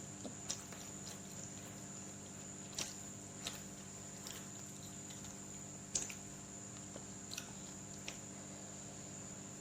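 A person chewing food, with half a dozen scattered sharp clicks, the loudest about six seconds in, over a steady electrical hum.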